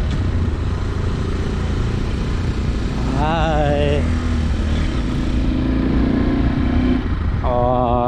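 Zongshen Cyclone RX1 motorcycle riding at a steady cruise: a steady engine hum under wind and road noise, heard from the rider's seat.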